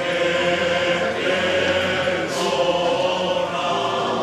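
A choir singing a liturgical chant in the Mass, several voices holding long notes and moving slowly between pitches.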